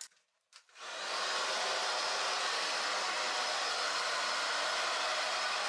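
Tescom hair dryer switched on with a click about half a second in, its fan coming up to speed within a second and then running steadily with an even rush of air.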